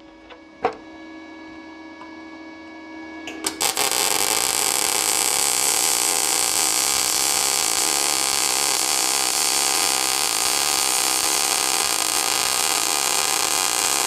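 MAG welding arc from a Parkside PMSG200A1 inverter welder at 100 amps and 19.3 volts on 0.7 mm steel sheet. A low steady hum first, then the arc strikes with a couple of brief crackles about three and a half seconds in. It runs as a steady, even crackling hiss for about ten seconds and cuts off suddenly at the end.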